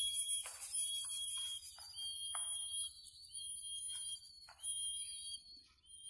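A training whistle blown in a string of short, high, steady blasts with a slight warble, a little over one a second: the call used to train pigeons to come to the feeding bottle.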